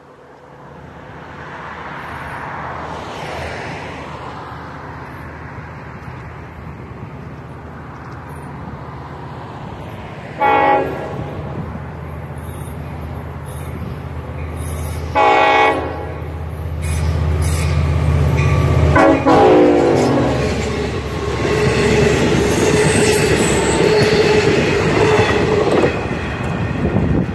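Long Island Rail Road push-pull train, C3 bilevel cab car leading, approaching and passing: three horn blasts a few seconds apart, each longer than the last, over a low rumble that builds. Near the end, wheels run loudly on the rails as the cars go by.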